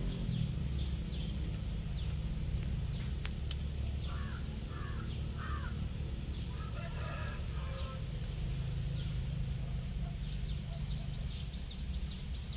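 Chickens clucking and a rooster crowing, about seven seconds in, with small birds chirping over a steady low hum.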